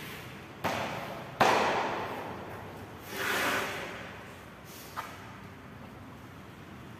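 Plywood panel faced with stucco sheet being handled, lifted onto its edge and turned over: two knocks, the second the loudest and trailing off over about a second, then a swishing sweep as the panel moves and a small click.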